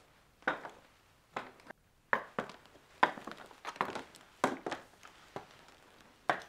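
Footsteps on a hard floor in a small room: about a dozen short, uneven steps.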